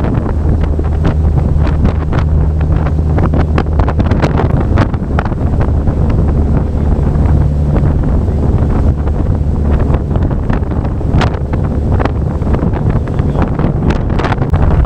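Wind buffeting the microphone in gusts over the steady low drone of a boat's engine running under way.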